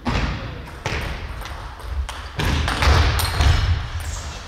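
Table tennis rally ending: sharp ball hits, then thuds and scuffs of the players' shoes on the sports-hall floor, with a louder, noisier stretch of thumping in the second half.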